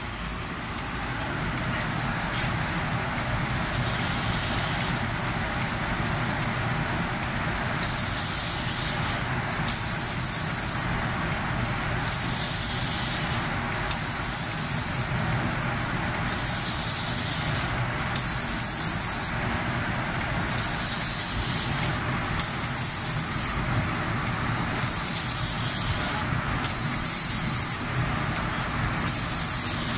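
Spray guns of an automatic cabinet-door paint spraying machine hissing in bursts of about a second, repeating roughly every two seconds from about eight seconds in, over the steady hum of the machine.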